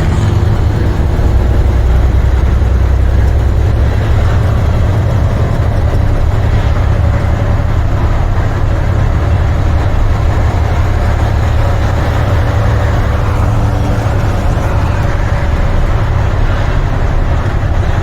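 Semi tractor's MaxxForce 13 diesel engine running steadily, heard from inside the cab as a deep, even drone with faint steady tones above it.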